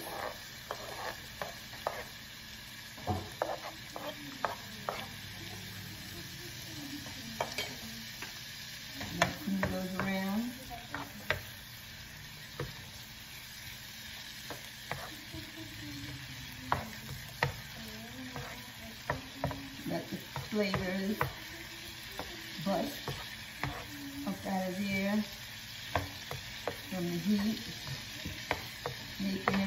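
Green onions sizzling as they fry in sesame oil with minced garlic in a nonstick skillet, stirred with a spatula that taps and scrapes against the pan many times. Short squeaky sounds come and go among the taps.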